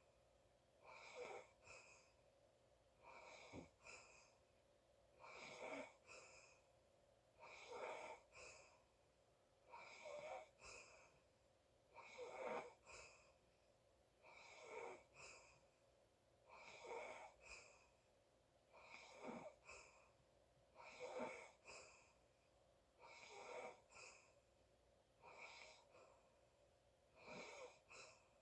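Faint, wheezy breathing of a sleeping person, one noisy breath about every two seconds with a slight whistle in it.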